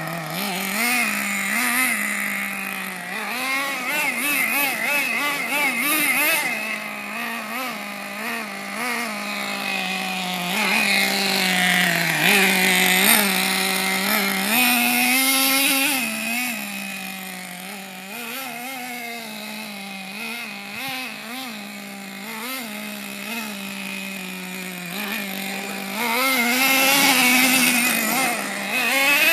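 Nitro engine of a Team Associated MGT 3.0 radio-controlled monster truck running, its buzzing pitch rising and falling with repeated throttle blips and short runs of revving. It is loudest around the middle and again near the end.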